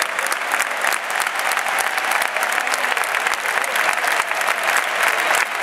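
Large stadium crowd applauding, a steady dense clatter of clapping.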